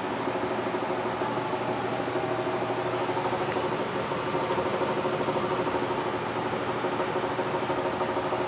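Amana furnace running with a steady rattle over its mechanical hum, a rattle whose cause the owner cannot find.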